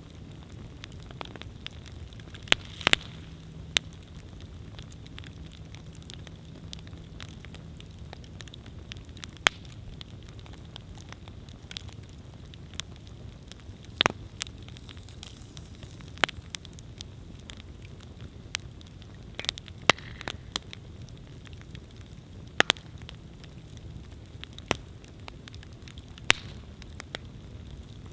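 Wood campfire burning: a steady low hiss and rumble of flames with irregular sharp crackles and pops from the burning logs, a few louder snaps scattered through.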